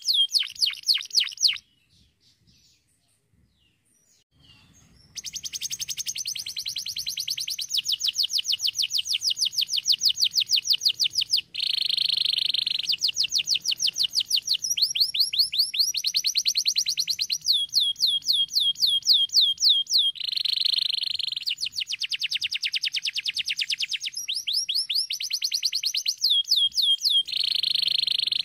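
Domestic canary singing: long fast trills of rapidly repeated down-slurred notes, broken now and then by a buzzy roll. About a second and a half in it stops for about three seconds, then sings on without a break.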